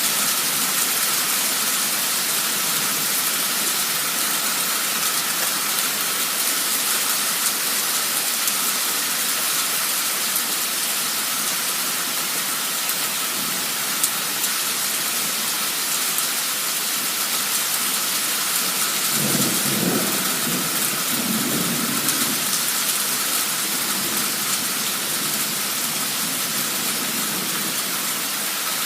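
Heavy torrential rain pouring steadily in a sudden cloudburst, with a low roll of thunder rumbling for a few seconds about two-thirds of the way through.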